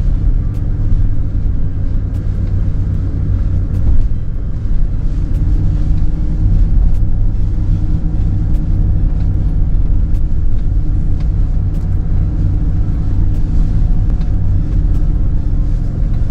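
Steady low rumble of the electric GMC Hummer EV SUV driving slowly over a rough dirt track.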